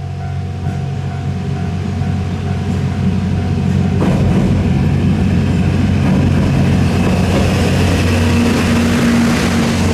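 87 series diesel train (Twilight Express Mizukaze) approaching, its diesel engines humming steadily and growing louder. About four seconds in, wheel and rail noise joins as the train reaches the crossing.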